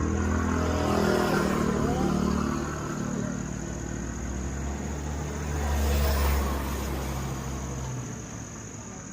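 Motor vehicles passing close by on the road, the engine rumble swelling and fading, with a second pass about six seconds in. Crickets chirp steadily underneath.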